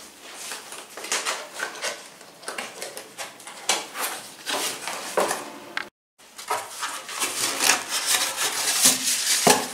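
Cardboard packaging being opened by hand: box flaps scraping and rubbing, then hands rubbing and pulling at the polystyrene foam insert inside, in many short scrapes and rustles. A brief break of silence about six seconds in.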